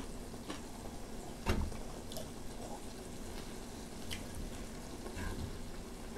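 Ramen broth simmering in a shallow pan on a portable gas burner, with chopsticks clicking against the pan now and then and a duller knock about a second and a half in.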